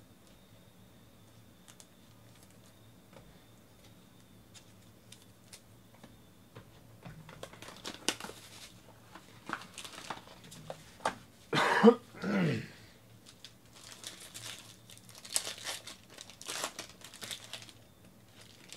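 Plastic shrink-wrap and a card pack's wrapper crinkling and tearing as a trading-card box is opened, starting several seconds in. A person coughs twice near the middle, the loudest sound.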